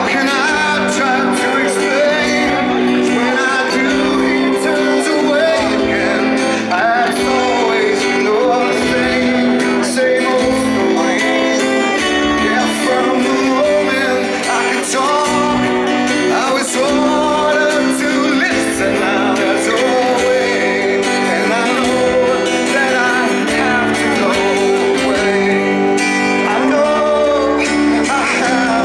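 Live band music: acoustic guitars strumming over electric bass, with a man singing.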